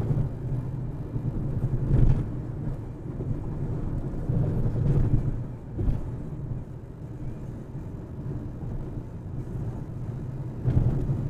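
Car driving on a highway: a steady low rumble of engine and tyre noise, with a few brief thumps, the loudest about two seconds in.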